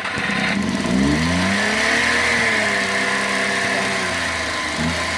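Suzuki K6A three-cylinder engine running, its revs rising about a second in and then slowly easing back down.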